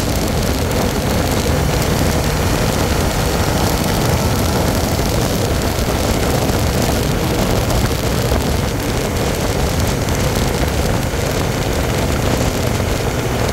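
Honda CBR1100XX Super Blackbird's inline-four engine running steadily at around 4,000 rpm in fourth gear as the bike slows from about 100 to 80 km/h. The engine is heard from the handlebars with a constant rush of wind and road noise.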